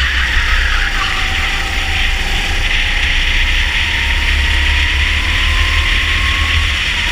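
Rental go-kart engine heard onboard at full throttle, its pitch climbing slowly as the kart accelerates out of a corner and down the straight, with a flickering wind rumble on the microphone.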